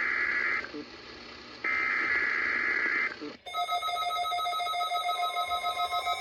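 NOAA Weather Radio SAME header data bursts, the digital tones that open a Required Weekly Test: one burst ends about half a second in, and a second about a second and a half long follows after a short pause. About three and a half seconds in, electronic music with a steady beat starts suddenly.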